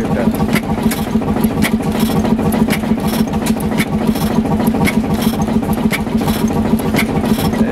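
Large single-cylinder hit-and-miss stationary engine running under load with a regular, steady beat, a sharp crack about once a second over a steady hum from the belt-driven blower it powers. It is firing on every cycle rather than hitting and missing, seemingly because the blowers keep a steady load on it.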